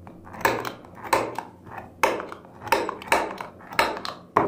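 A series of about seven sharp taps on a wooden clock blank, roughly two-thirds of a second apart, as hole or hour points are struck into the wood by hand.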